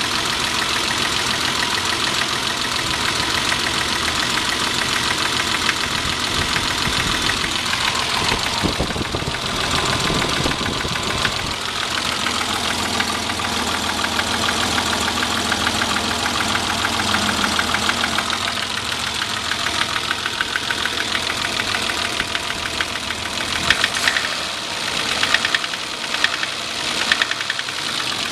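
BMW M20B25 2.5-litre straight-six running with a rhythmic knock, which the owner can't place as piston slap or rod knock. The sound gets louder in several short jumps near the end.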